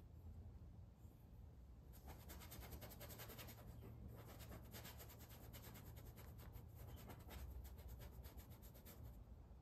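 Faint, rapid scratching of a small paintbrush stroking and dabbing oil paint onto a gesso-primed stretched canvas. It starts about two seconds in and stops near the end.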